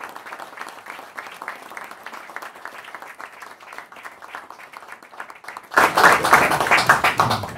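Audience applauding, a dense patter of many hands clapping that turns much louder about six seconds in.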